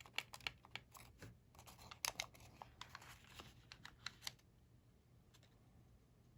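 Faint crisp crackling and clicking of coloured origami paper being handled and creased, with a brief rustle around the middle, dying away after about four seconds.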